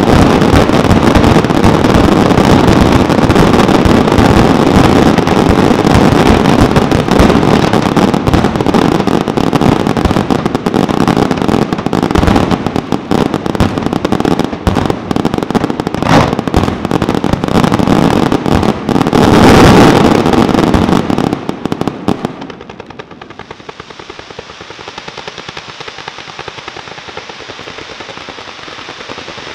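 Aerial fireworks display firing a dense, continuous barrage of overlapping shell bursts and bangs, loudest just before the end of the barrage. About 22 seconds in it drops abruptly to a much quieter, steady hiss.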